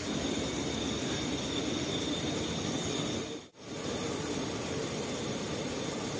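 Steady rushing of a flowing river, an even noise with a faint high steady tone above it, cut off for a moment about halfway through and then resuming unchanged.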